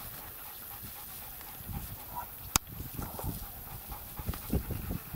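Dogs panting hard as they pull a loaded cart, with one sharp click about halfway through.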